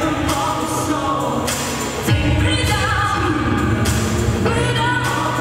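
Female lead vocalist singing over electronic pop music. About two seconds in, a deep bass hit with a downward sweep comes in and the music gets louder.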